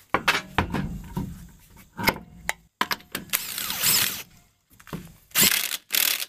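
Clicks and knocks of a truck wheel and its lug nuts being handled, then several short bursts of a Milwaukee cordless impact wrench spinning lug nuts, each burst cut off suddenly.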